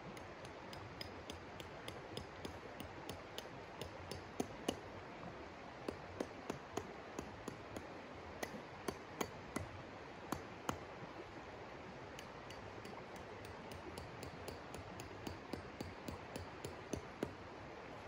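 River running with a steady rush, under a run of sharp, glassy clinks and clicks, irregular, two or three a second, from hands working at the stony edge of the water; they pause briefly past the middle, then pick up again.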